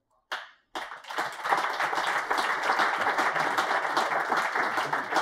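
Audience applauding, a dense patter of many hands clapping, starting less than a second in and holding steady.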